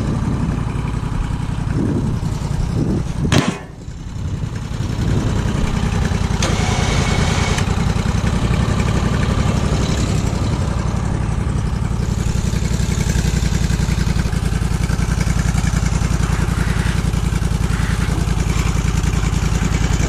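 Gasoline engine of a portable bandsaw sawmill running steadily. About three and a half seconds in there is a sharp click, and the sound briefly drops before picking back up.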